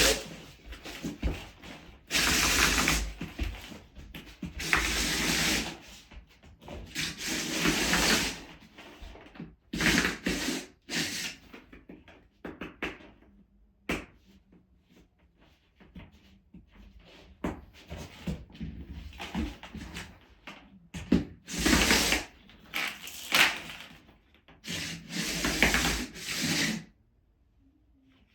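Repeated bursts of rubbing and scraping, each lasting a second or so, with short pauses and a few sharp clicks between them. This is plastic and cable work on a Ditra-Heat uncoupling membrane as the heating cable is fitted into its studs. The sound stops shortly before the end.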